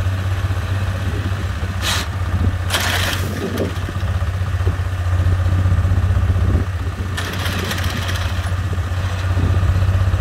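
Small farm tractor's engine running steadily while driving a PTO post-hole auger that is lifted clear of the ground. Short rushes of hissing noise come about two and three seconds in, and again about seven to eight seconds in.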